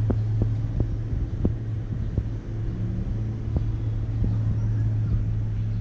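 A vehicle engine running at a steady low hum, with scattered light knocks and rattles.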